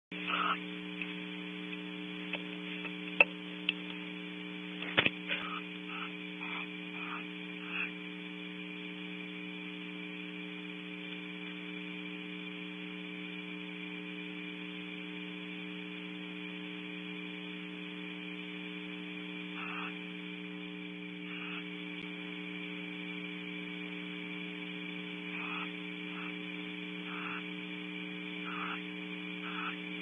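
Steady electrical hum in the nest camera's audio feed, with a few sharp clicks about three to five seconds in and faint short blips scattered through.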